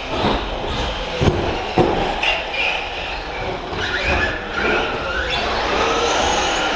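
Electric radio-controlled short-course trucks running on an indoor carpet track: motor whine rising and falling in pitch as they speed up and slow down, over a steady running noise, with two sharp knocks about a second in.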